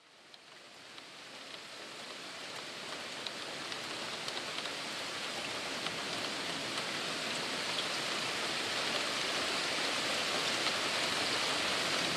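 Steady rain falling, fading in from silence and growing louder, with a few sharper drop ticks.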